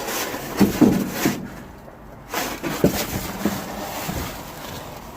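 Rummaging through discarded groceries in a dumpster: irregular rustling of bags and packaging with scattered knocks as items are moved, quieter for a moment about a second and a half in.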